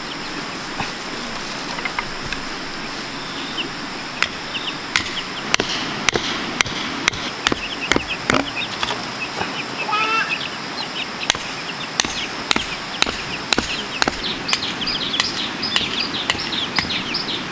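Hammer blows knocking nails into wood, a steady run of sharp strikes about one or two a second. Young chicks peep alongside, more often near the end.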